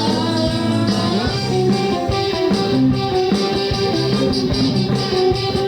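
Guitar-led rock band playing live: guitar over bass and drums, an instrumental stretch between sung lines.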